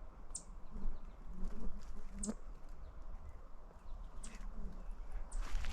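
Scattered short, high chip calls from songbirds in a forest, a second or more apart, with a few soft low thumps.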